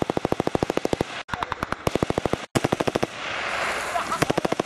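Automatic weapon fire aimed at an aircraft: long, rapid bursts of about ten shots a second. The bursts break briefly about a second in and again at about two and a half seconds. The shots stop for about a second near three seconds and start again just before the end.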